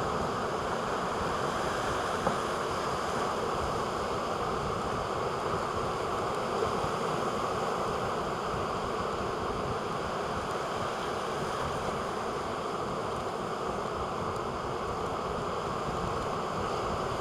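Steady rush of heavy surf, with wind over it, unbroken throughout.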